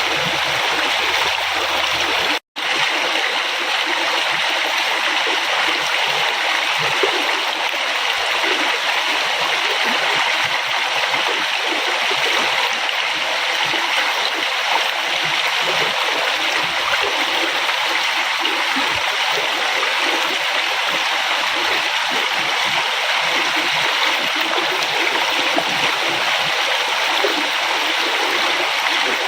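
River water flowing steadily, an even, unbroken rush. The sound cuts out for an instant about two and a half seconds in, then resumes.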